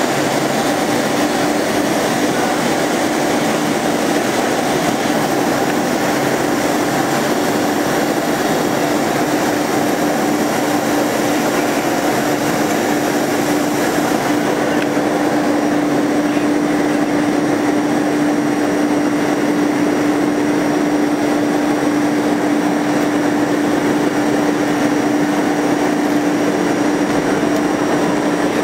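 Large automatic-tool-change CNC router running, its spindle giving a steady hum at one constant pitch over even machine noise.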